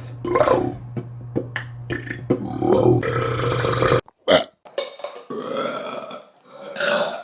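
Several loud human burps, made on purpose, one after another from different people in short clips, with a longer drawn-out belch past the middle. A steady low hum runs under the first few seconds and cuts off abruptly about four seconds in.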